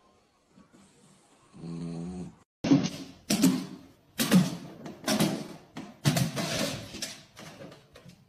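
A sleeping cat gives a single short snore. Then a dog barks loudly about six times in quick succession.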